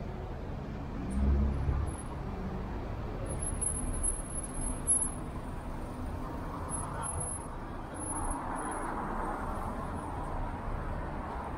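Town-centre street ambience with road traffic. There is a short low rumble about a second in, and a vehicle drives past in the second half, its noise swelling and fading.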